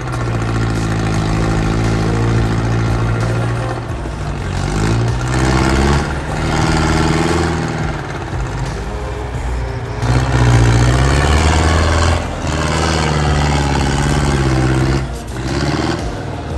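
Trial truck's engine revving and labouring under load, its pitch rising and falling several times, loudest about two-thirds of the way through.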